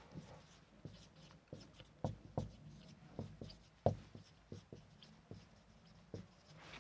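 Marker pen writing on a whiteboard: faint, irregular taps and short squeaks of the felt tip as letters are formed.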